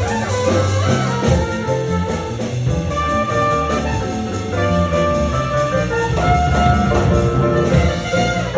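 A live New Orleans jazz band playing: brass horns, trumpet among them, carrying the tune over a steady bass and drums.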